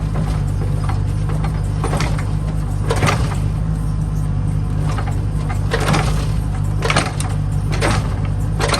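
Excavator's diesel engine running steadily, with irregular sharp clanks over it.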